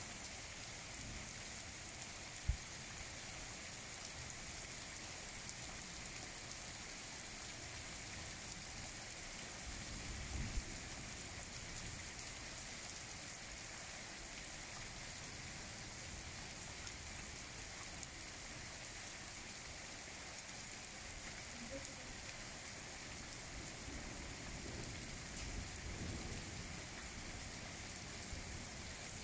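Steady rain falling on puddled ground and a shallow sheet of muddy runoff, an even hiss. There is one brief thump about two and a half seconds in.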